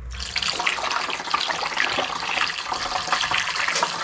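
Coolant being poured into the reservoir of a TIG welder's water-cooling unit: a steady stream of liquid splashing in.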